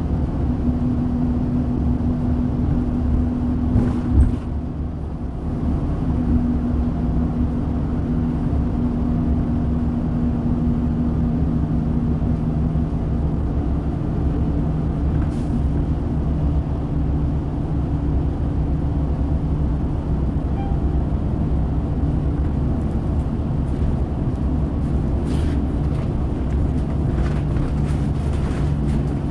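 Orion VII hybrid bus running steadily: the Cummins ISB six-cylinder diesel and BAE Systems HybriDrive give a deep rumble under a couple of steady low hums. One sharp knock comes about four seconds in, and the sound dips briefly after it.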